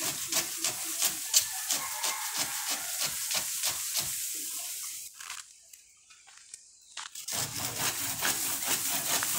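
Hand saw cutting through a kamini (orange jasmine) tree branch in quick rasping strokes, about four a second. The sawing pauses for about two seconds in the middle, then resumes.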